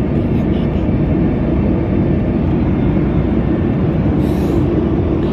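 Steady, even rumble of airliner cabin noise: the drone of the engines and airflow heard from a window seat.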